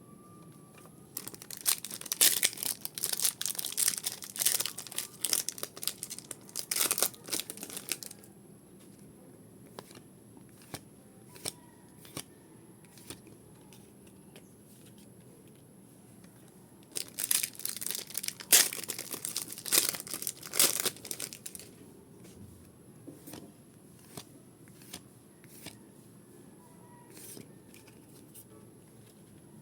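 Pokémon booster pack wrappers being torn open and crinkled, in two bursts of several seconds each, with scattered light clicks between them.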